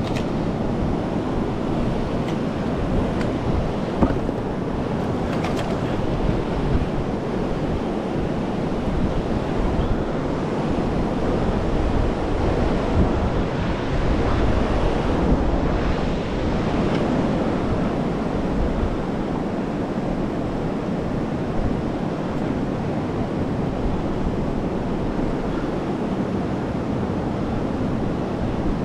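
Steady rushing of wind buffeting the microphone over open water, with a few faint clicks.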